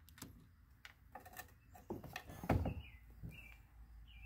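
Hand nut driver unscrewing a 10 mm nut from a mirror mounting stud inside a car door: light metal clicks and taps, with a louder knock about halfway through as the nut comes free. Birds chirp several times in the background.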